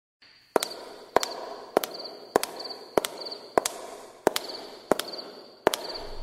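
Logo intro sound effect: nine sharp bangs, evenly spaced a little over half a second apart, with a crackling hiss and a faint pulsing high tone between them.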